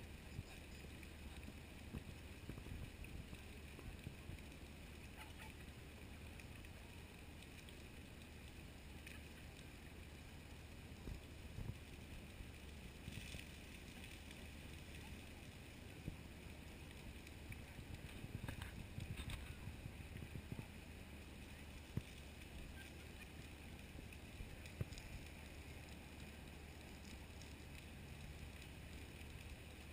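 Faint steady low outdoor rumble, with a few brief faint sounds, likely distant voices, around the middle.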